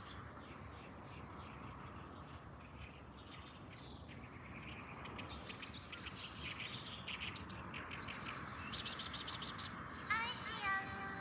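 Small birds chirping and trilling in rapid series over a steady outdoor background hiss. About ten seconds in, music with a synthesized singing voice starts and becomes the loudest sound.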